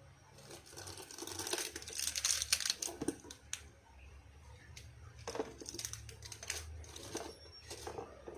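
Crinkling and rustling of a plastic seasoning packet being handled and torn open, loudest in the first few seconds, followed by scattered small clicks and knocks.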